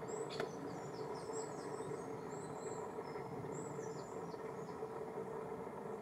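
Thin, high chirps and short down-slurred notes of small songbirds, over a steady low hum, with one sharp click about half a second in.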